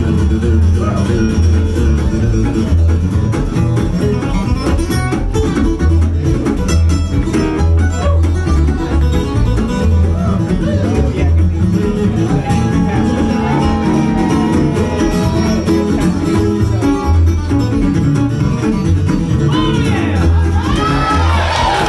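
Live country-bluegrass band playing an instrumental break: strummed acoustic guitar over walking upright bass notes, with high sliding notes coming in near the end.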